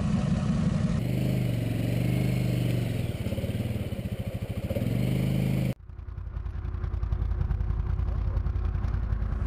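ATV (quad bike) engines running off-road across several edited clips. The pitch rises and falls as the engine revs, then settles to a steadier low running note. The sound changes abruptly at cuts about one second and about six seconds in.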